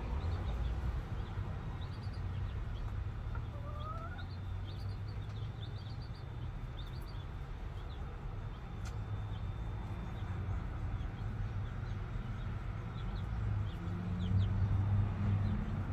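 Chickens in a coop: chicks peeping in many short high calls throughout, with one rising hen call about four seconds in.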